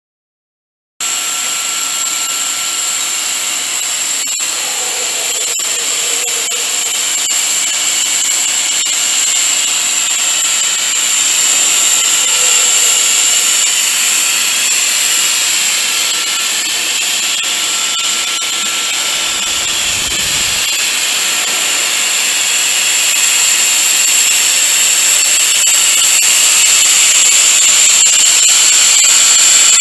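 HDPE pipe extrusion machine running: a steady, high-pitched whine over a constant mechanical hiss, starting about a second in.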